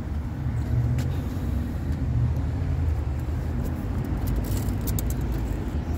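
Steady low vehicle rumble, with a few light clicks and taps over it.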